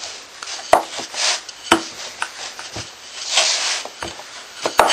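Wooden rolling pin rolling out puff pastry dough on a wooden board: swishing passes over the dough with several sharp wooden knocks of the pin against the board.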